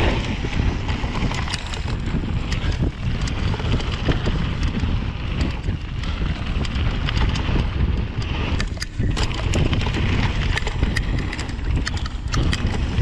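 Wind rushing over a GoPro's microphone as a Rocky Mountain Slayer full-suspension mountain bike descends a trail. Tyre noise is overlaid with frequent sharp clicks and rattles as the bike goes over bumps.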